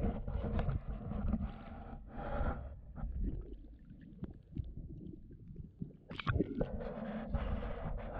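Muffled water sloshing and gurgling picked up by a camera held underwater while a pike is released by hand, with scattered knocks and a sharper splash about six seconds in.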